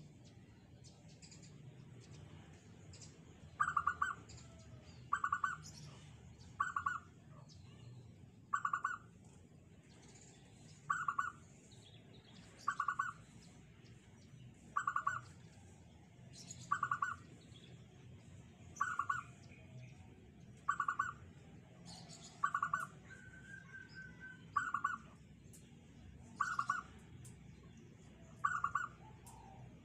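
Zebra dove (perkutut) singing: a short cooing phrase repeated about every two seconds, starting a few seconds in. Other small birds chirp faintly in the background.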